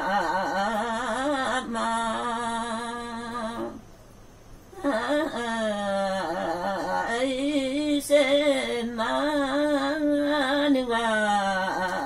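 A woman singing a Limbu Tam:awke (Tamke) folk song solo and unaccompanied, in long held lines with a wavering ornament on each note. She pauses for breath about four seconds in.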